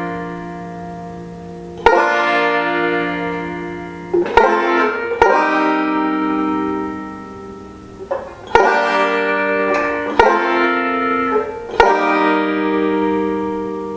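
Five-string banjo, capoed at the third fret, playing ringing chords: each chord is struck and left to ring and fade, roughly one every two seconds, with a couple of quick double strikes in the middle.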